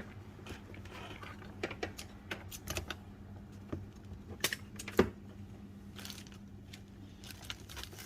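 Irregular light clicks and knocks of hands and tools handling the parts of an Ampico player-piano stack while old tubing is worked off its metal nipples, with one louder knock about five seconds in. A steady low hum runs underneath.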